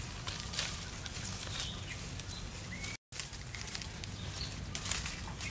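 Crackling rustle of leaves and vine stems being handled in undergrowth, with a few faint bird chirps over a steady low rumble. The sound cuts out for an instant about three seconds in.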